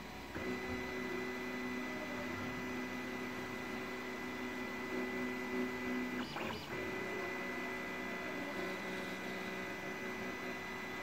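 Anet A8 desktop 3D printer running a print: its stepper motors whine in steady tones over a low hum, with a brief rising and falling whine about six seconds in.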